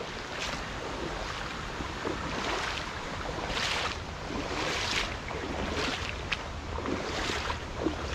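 Steady rushing of river water, with wind on the microphone and several brief rustles scattered through it.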